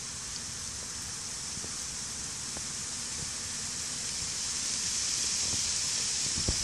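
Honey bees swarming and fighting on a stump, their wings a low buzz under a steady high-pitched hiss that grows a little louder after about four seconds.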